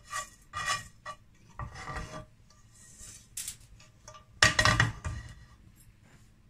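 Nonstick frying pan being handled and moved on a gas stove: a few short rubs and light knocks of the pan, with the loudest clatter about four and a half seconds in.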